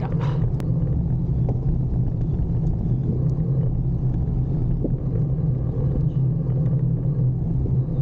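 Steady wind rumble over a bike-mounted camera's microphone, mixed with tyre noise, as a road bike rides along a paved mountain road.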